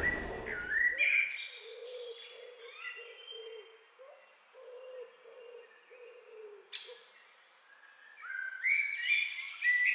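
Forest birdsong ambience: several birds chirping with short rising calls, over a low cooing call repeated through the first several seconds. The rumble of a passing train fades out in the first second.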